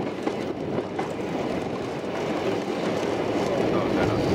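A 785 mm narrow-gauge train running along the line, hauled by a diesel locomotive, heard from a carriage: a steady rumble of wheels on the rails with a few faint clicks.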